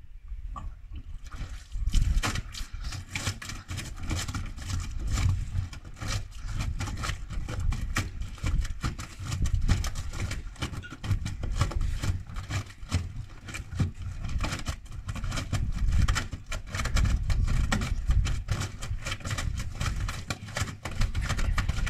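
Gorenje washing machine running with a deliberately unbalanced load, its drum knocking and banging in a rapid run of blows over a deep rumble. The knocking starts about a second in.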